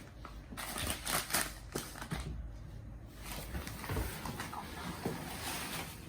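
Packaging rustling and crinkling in irregular bursts as a tightly wrapped parcel is opened by hand, busiest about a second in.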